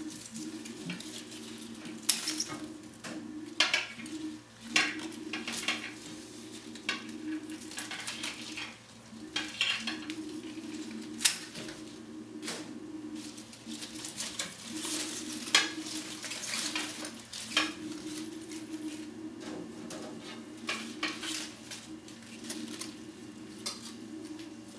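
Irregular snips and clicks from hand pruning shears cutting back vivarium plants, with leaves and stems rustling as they are pulled out, over a low intermittent hum.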